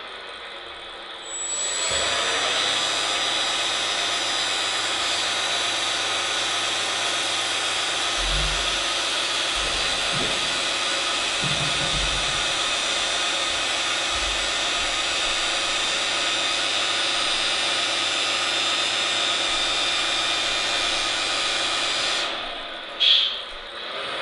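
An RC dump truck's hydraulic tipper pump runs with a steady whine for about twenty seconds while the telescopic cylinder lowers the raised bed. It cuts off, followed by a short knock near the end.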